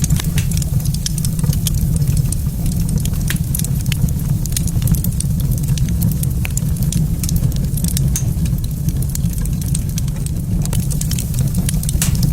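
Wood fire crackling in a fireplace, with scattered sharp pops and snaps over a steady low rumble.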